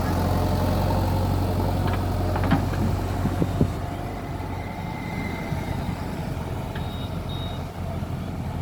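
Backhoe loader's diesel engine running steadily, with a few sharp knocks about two to three and a half seconds in. The engine is quieter from about four seconds in, and a couple of brief high beeps sound in the second half.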